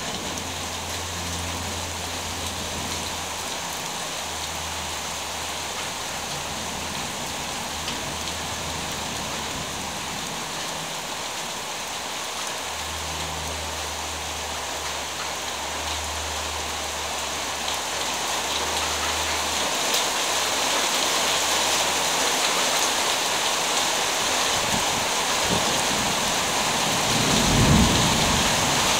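Steady heavy rain that grows heavier in the second half, with long low rumbles of distant thunder and a louder thunderclap near the end.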